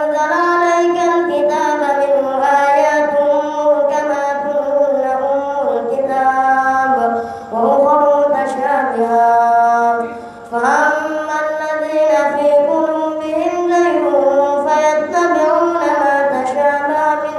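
A boy's voice reciting the Quran in a melodic chant through a microphone, in long, drawn-out phrases with short pauses for breath about seven and ten seconds in.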